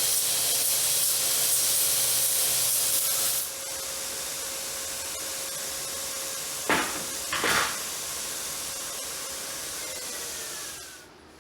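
Shop-built surface grinder working steel coin blanks: a loud grinding hiss for the first three seconds or so, then a quieter steady running sound with two short loud grinding passes about seven seconds in, and a falling whine near the end as it fades.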